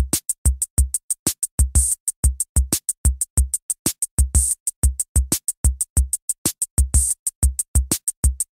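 Electropunk music stripped down to a bare, dry drum machine beat: deep kick-drum thumps and short clicking hits, about five a second, with silence between them and no other instruments.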